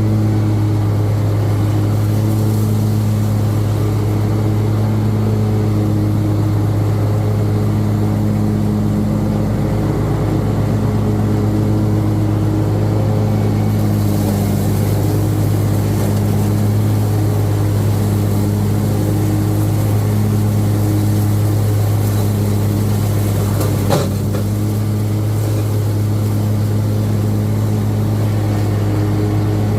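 Riding lawn mower engine running steadily at a constant speed. A single sharp knock or crack sounds about 24 seconds in.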